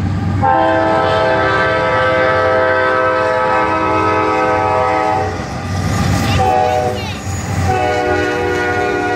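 CSX diesel freight locomotive's air horn sounding a chord of several notes: a long blast, a short one and another long one starting near the end, over the low rumble of the passing locomotives.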